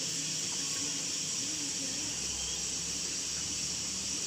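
Steady hiss of a pot of herbal decoction boiling uncovered on the stove.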